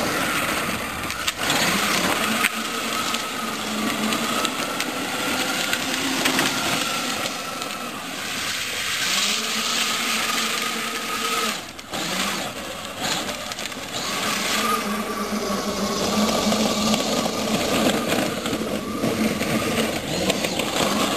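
24-volt Power Wheels Jeep running: its small electric drive motors whine steadily, wavering a little in pitch, over the grinding of its hard plastic wheels on asphalt. The sound drops out briefly about halfway through.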